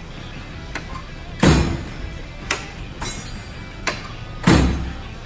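A Snap-on tool chest drawer loaded with combination wrenches slammed shut twice, about three seconds apart, the wrenches clanking with each hit: a slam test of the wrench organizer racks holding them. Lighter clicks come between the two slams.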